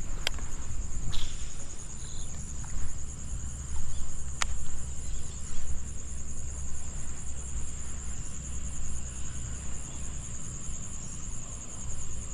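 Steady high-pitched chirring of an insect chorus, cricket-like, over a low rumble. Two sharp clicks, one just after the start and one about four seconds in.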